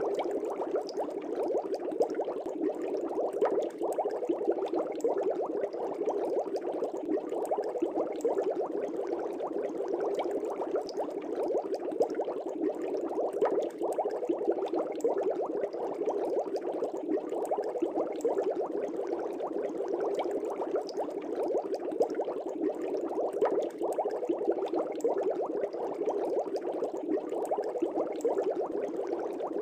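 Air bubbles rising in a fish tank, a steady, dense bubbling that runs on without a break.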